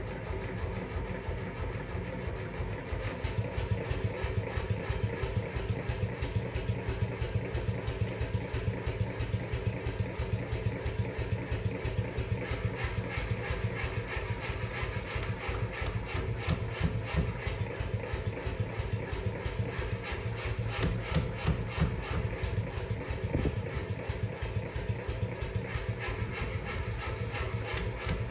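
Power hammer with a 250-pound ram running on its new motor: a steady motor hum at first, then about three seconds in the ram starts striking in a fast, even rhythm of blows that keeps going.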